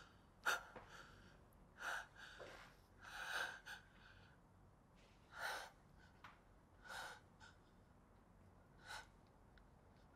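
A woman's quiet, shaky crying breaths: about half a dozen gasping inhales and exhales, a second or two apart.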